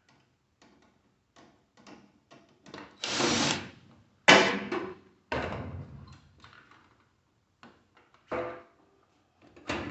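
Knocks and clatter of a microwave's plastic and sheet-metal front panel being worked loose. A noisy burst of about a second comes about three seconds in, followed by three sharp knocks spread over the rest.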